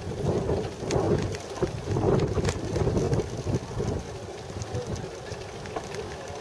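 Wind buffeting the microphone on a moving bicycle, with a low rumble from the ride and scattered light clicks and rattles; it eases about four seconds in.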